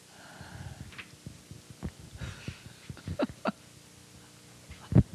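Faint steady hum with scattered short clicks and knocks, the loudest one near the end.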